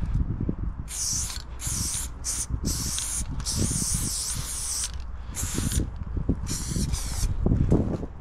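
Aerosol spray paint can hissing in short bursts, about seven over six seconds, as a tag is written in black. Footsteps crunching on gravel track ballast, loudest near the end.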